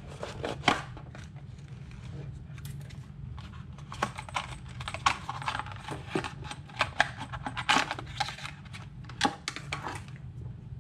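Unpacking handling noise: an RC car speed controller being pulled out of its packaging insert and the insert and loose wires set down on a wooden table, giving irregular light clicks, taps and scrapes, busier in the second half.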